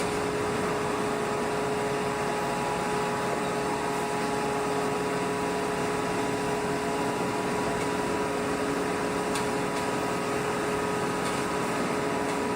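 Steady hum of heavy forge-shop machinery, a motor or pump running at a constant pitch with a few steady tones over an even noise, and a few faint clicks near the end.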